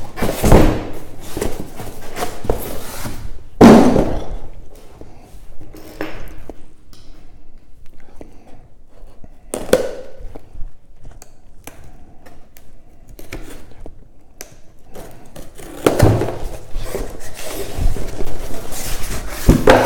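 Cardboard shipping box being handled and opened: irregular thumps as it is set down and turned, with rustling and scraping of the cardboard between them.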